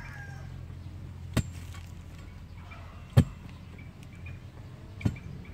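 An iron digging bar stabbed down into hard soil to loosen it around purple yam tubers: three sharp strikes about two seconds apart, the middle one the loudest.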